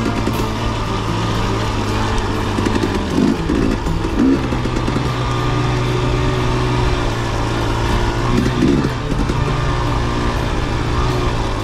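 Dirt bike engine running while being ridden, its revs rising and falling several times as the throttle is worked.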